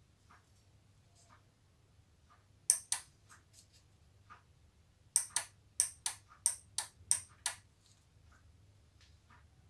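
Small electromechanical relay on a photocell amplifier prototype clicking on and off as the sensor detects a card passed in front of it. There are two clicks about three seconds in, then a quick run of about nine sharp clicks between five and seven and a half seconds in.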